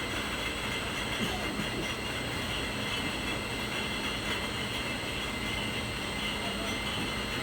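Bottling line machinery running steadily: an even mechanical din with a high, steady whine over it.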